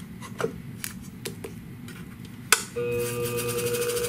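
Clicks and knocks as an abrasive disc is fitted onto a Scimech flathone shear-sharpening machine. Then a sharp click, and the machine starts about two and a half seconds in and runs with a steady hum and a fast, even ticking from the spinning disc.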